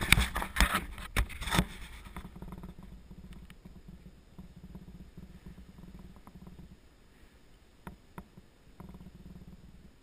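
Handling noise from a GoPro HD Hero2 being set in place: knocks and rubbing against the camera during the first two seconds, then a faint low rumble with a few small clicks.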